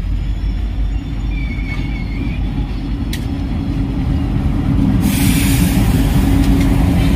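Train rumbling along at a station, with a brief high wheel squeal about two seconds in. About five seconds in, a loud hiss starts and a steady engine drone grows stronger as an Indian Railways diesel locomotive comes close.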